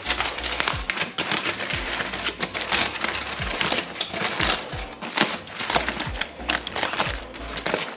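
Heavy-duty aluminium foil crinkling and crackling as it is pulled open from around a foil-wrapped brisket in a foil pan, over background music with a steady beat.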